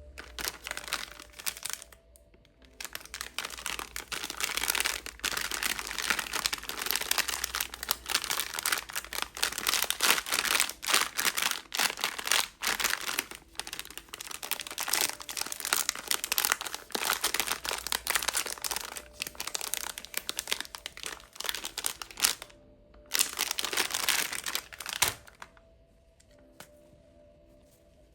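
Plastic candy wrappers crinkling and crackling as lollipops are unwrapped by hand, in a long continuous stretch, then a brief pause and one more short burst near the end.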